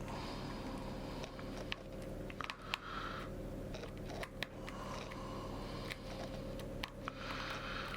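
Small screwdriver working the tiny back-plate screws of a Fujifilm X-T2 camera: short scratchy rasps and light metal clicks, over a steady low hum.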